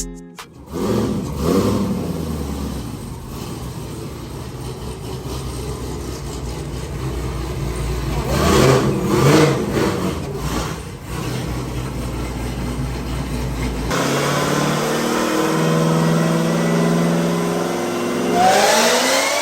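Car engine running, with the revs surging a few times. About two-thirds through, the sound cuts to an engine holding a steady note, which then rises in pitch near the end as it revs up.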